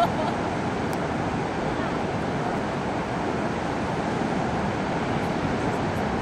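Steady rushing noise of ocean surf breaking on the beach, mixed with wind on the microphone.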